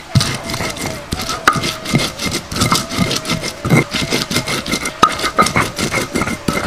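Stone pestle grinding coriander seeds and garlic on a flat stone grinding slab (Minang batu lado): rapid, irregular scraping strokes with sharp knocks of stone on stone.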